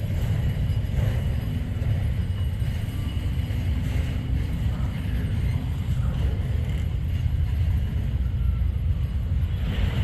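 Freight train passing, a steady low rumble from the moving cars.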